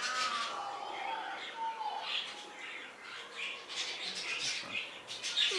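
Parrot whistling and chattering: a few short whistles, one of them gliding down, then a string of scratchy chirps and clicks.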